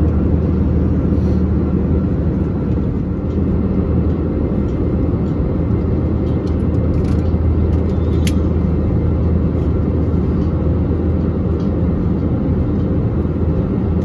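Steady engine and airflow drone inside an Airbus A321-200 passenger cabin in flight, deep and even throughout, with a light click about eight seconds in.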